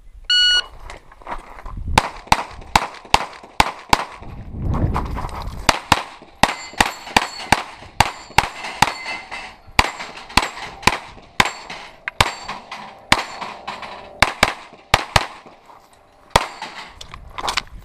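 Electronic shot-timer start beep, then a rapid string of pistol shots from the shooter's own red-dot handgun, fired in quick pairs and runs. There is a short break in the firing around four to six seconds in, then the string resumes through the end.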